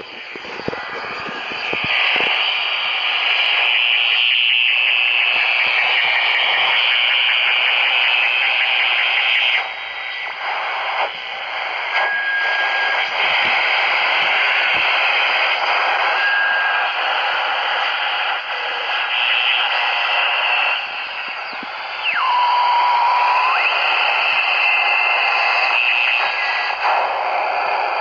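Static and hiss from an old analogue radio being tuned across the dial, shifting as stations come and go. Brief steady whistles sound twice midway, and near the end a whistle slides down in pitch and holds for about a second.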